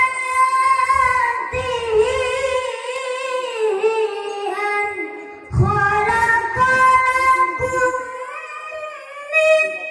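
A boy chanting a Qur'an recitation (qiroah) through a microphone and PA system, drawing out long, ornamented melodic notes in a high voice. He breaks off briefly about halfway through, then starts a new phrase.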